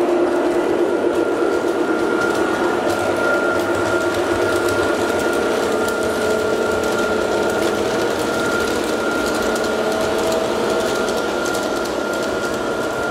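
Several G-scale model trains running on track laid on a hardwood floor: a steady electric-motor whine over the rolling rumble of wheels on the rails, with light clicking.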